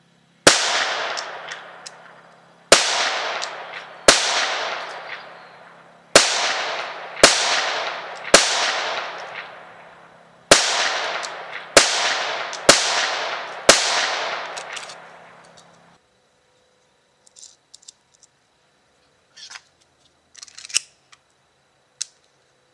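Ten shots from a Ruger Mark III .22 LR semi-automatic pistol, fired at an uneven pace over about thirteen seconds, each with a long echoing tail. A few faint metallic clicks and knocks of gun handling follow near the end.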